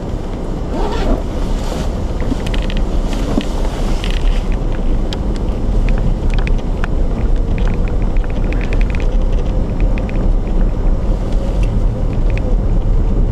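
A car driving, with a steady low tyre and road rumble and scattered light clicks and rattles.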